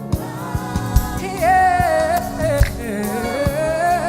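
Live gospel worship music: singers holding long sung notes over a band, with steady drum hits underneath.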